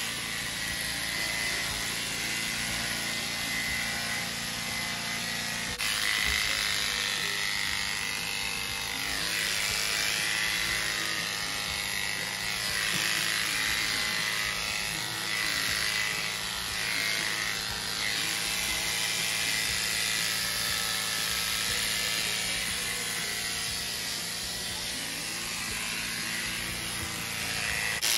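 Electric horse clippers running steadily as they shear through a horse's coat, the motor's hum wavering in pitch as the blades cut.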